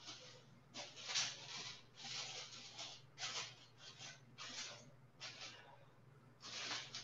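Faint rustling and scraping handling noises in short irregular bursts, as a pan on a stove is handled and covered, over a steady low hum.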